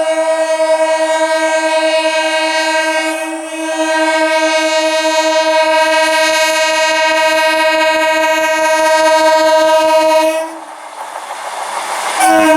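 Electric multiple unit train's horn blowing one long, steady, unbroken blast for about ten seconds, then cutting off suddenly. After a short gap with only the train's running noise, the horn sounds again just before the end.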